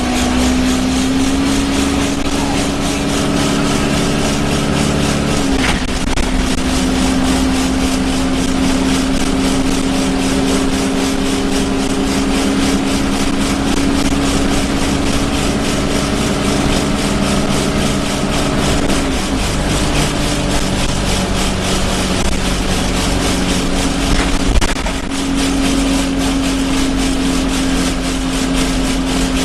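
Alexander Dennis Enviro 200 bus heard from inside while under way: its engine drone and a loud, steady droning vibration through the bus body, stepping in pitch a few times as the engine speed changes, over a constant rumble, with a couple of brief knocks.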